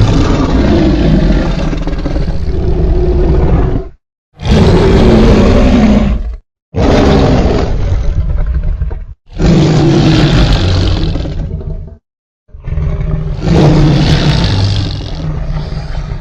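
Five roars of a fictional hybrid dinosaur sound effect, built by layering and editing lion, tiger, dinosaur and movie-monster roars. Each roar lasts two to four seconds, with brief silences between them; the first is already under way at the start.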